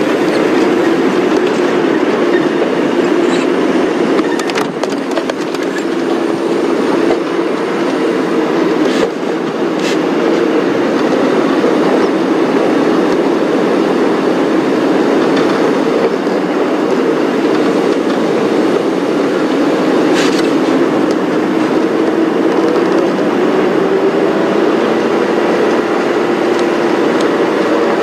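Safari vehicle's engine running as it drives, a steady drone that rises and falls a little in pitch, with a few light knocks and rattles.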